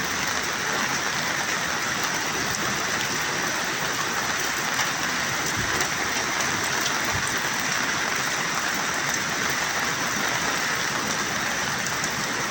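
Steady hiss of water, even and unbroken, with no sudden events.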